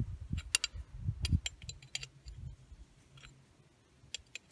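Light metallic clicks of an open-ended spanner being fitted onto a brass oil-burner nozzle, several in the first second and a half and one more near the end, with a few low handling bumps.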